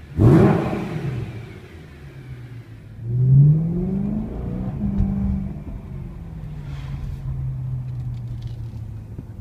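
BMW M3's 4.0-litre V8 with a BMW competition race exhaust, blipped once sharply and falling away. About three seconds in it revs up again, holds briefly, then drops to a steady idle.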